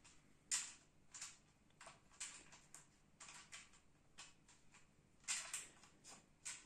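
Faint handling noises from a wooden embroidery floor frame: an irregular string of short scrapes and rubs, about two a second, as hands work its crossbar.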